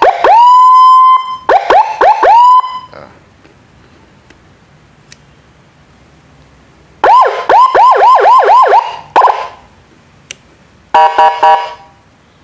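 Electronic 12-sound siren module sounding loudly through a horn loudspeaker, set off by button presses in short bursts. First a tone sweeps up and holds, then four quick rising whoops. After a pause comes a fast run of rising chirps, and near the end a brief rapid stuttering tone.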